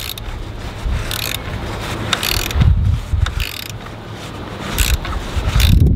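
Ratchet clicking in several short strokes as a worm-drive hose clip is tightened onto a hose, with knocks from hands and tool against the engine.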